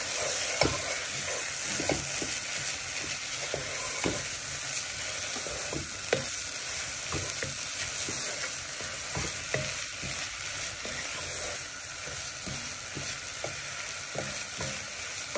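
Spring onion and grated coconut sizzling in an oiled wok while a wooden spatula stirs them, with a steady frying hiss and irregular light knocks and scrapes of the spatula against the pan.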